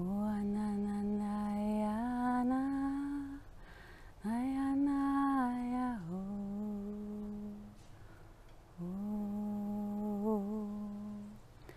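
A woman's voice humming and intoning wordless 'light language' tones in four long held phrases with short pauses between. The first steps up in pitch twice, the second starts high and drops back down, and the last wavers briefly near the end.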